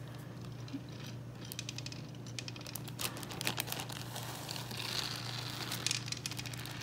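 Light, irregular clicking of plastic aroma beads being pushed about with a nail inside a metal cookie cutter on a nonstick baking sheet, stray beads ticking against the pan. A plastic zip-top bag rustles about four to five seconds in.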